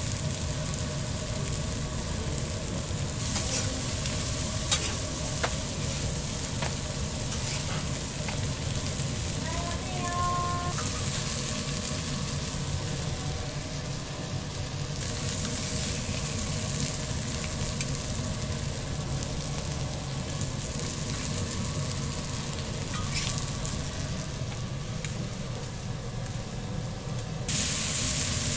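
Food sizzling steadily on a steel flat-top griddle: eggs, a sausage and cubes of beef frying. A few sharp clicks of metal tongs and a spatula against the steel.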